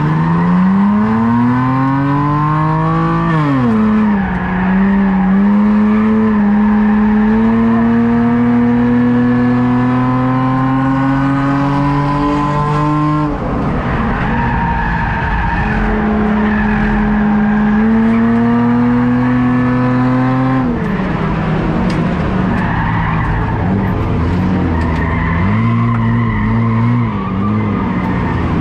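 Race car engine heard from inside the car at racing speed: it revs up in a long steady climb, drops sharply three times as the throttle comes off, and wavers at lower revs before picking up again near the end.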